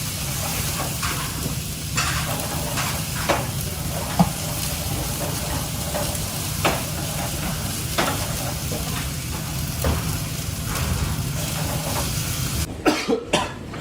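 Food sizzling as it fries in a pan, with a cooking utensil stirring and knocking against the pan every second or two. Near the end the sizzle cuts off and a few sharper knocks follow.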